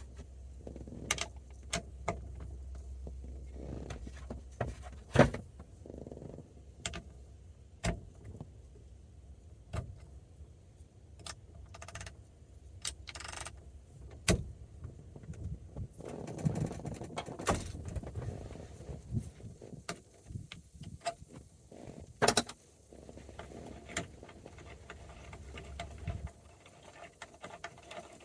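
Irregular metallic clicks and clinks of a socket wrench working the 13/16-inch steering wheel retaining nut, over a low steady hum that stops near the end.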